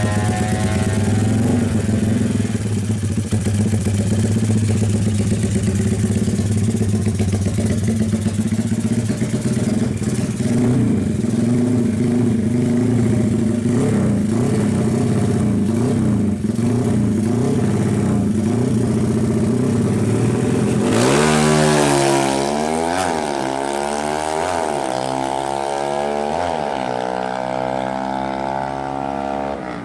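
Honda Tiger drag bike's single-cylinder four-stroke engine, bored up to 300cc, idling with a few light throttle blips. About two-thirds of the way in it revs hard in repeated rising and falling sweeps.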